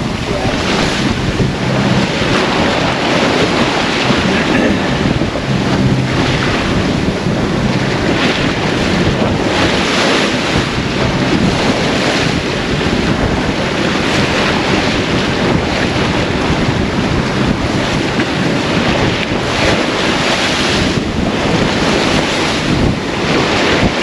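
Strong wind buffeting the microphone on a sailing yacht in rough, confused seas, with waves rushing and breaking around the boat in louder surges every few seconds.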